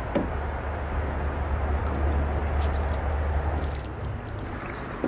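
Water splashing and sloshing as a bow-shot silver carp is grabbed by hand and hauled against the side of an aluminium boat, over a low rumble that stops about four seconds in.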